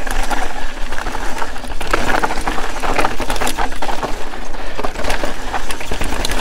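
Mountain bike descending fast over a loose rocky trail: tyres crunching and skittering over marble-like loose stones, with many sharp clicks and knocks from rocks and the bike.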